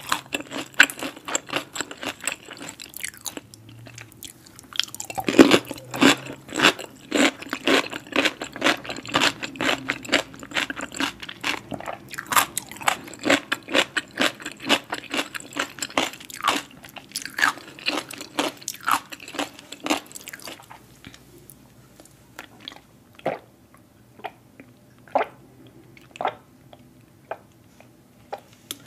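Close-miked chewing of crunchy food: dense, wet crunches that thin out to occasional soft mouth clicks over the last third.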